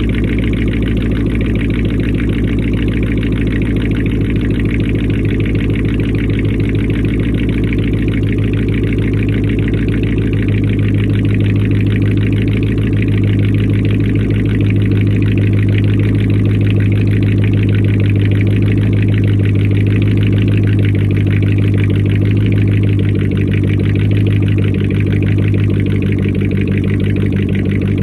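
Car engine idling steadily, just restarted after a week off the road with a failed alternator.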